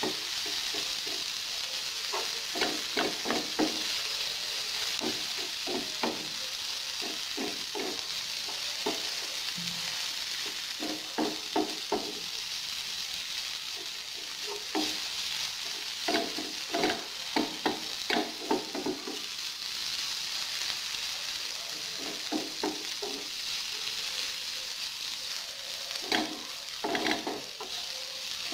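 Chopped onion sizzling steadily in oil in a nonstick frying pan. A wooden spatula stirs and scrapes against the pan in quick runs of strokes every few seconds, and these strokes are the loudest sounds.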